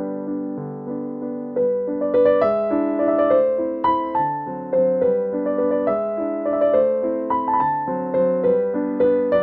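Background piano music: a gentle melody over chords, notes struck at an unhurried, even pace, growing a little fuller about two seconds in.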